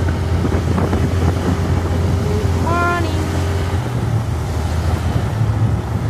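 Motorbike engine running steadily while riding, with wind buffeting the microphone.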